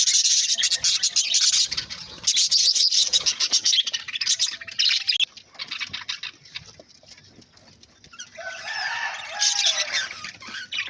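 Budgerigar chirping and chattering in a fast, dense run of high notes, easing off about five seconds in, then warbling again in lower, wavering notes near the end.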